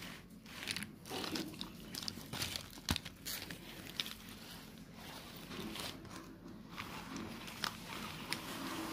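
Irregular clicks, knocks and rustling from plastic toys being handled and moved about on a cloth-covered floor.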